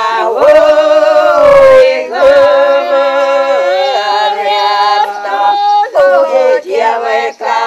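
A group of women singing a Russian folk song a cappella, several voices in harmony holding long drawn-out notes, with an "ой" in the words.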